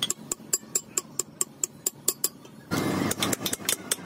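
Rapid, even metallic tapping, about four or five sharp strikes a second, during work on a truck's rear wheel hub and its studs. A short burst of rumbling noise comes about three seconds in.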